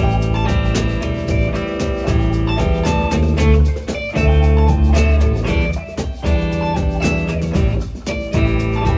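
Live band playing an acoustic arrangement: guitar and drum kit with a steady beat.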